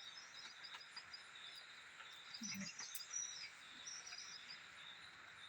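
Faint rural ambience: a steady insect drone with scattered bird chirps.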